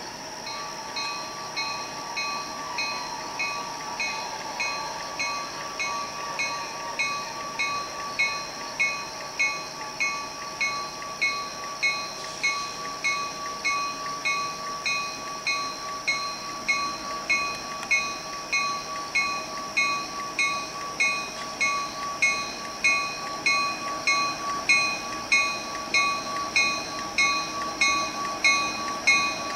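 Bell on an approaching GP38-2 diesel locomotive ringing steadily, about one and a half strokes a second, growing louder as the train draws near. A steady high hum sounds beneath the bell.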